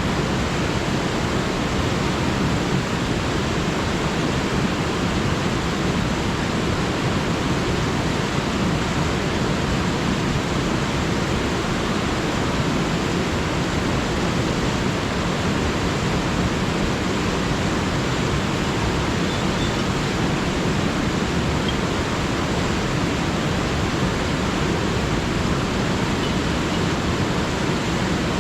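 Alpine river rushing steadily over rocks, a constant even roar of flowing water.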